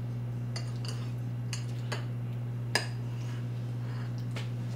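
Metal fork clicking and scraping against a ceramic baking dish as it digs into baked stuffed mushrooms: a few light, scattered clinks, the sharpest a little before three seconds in, over a steady low hum.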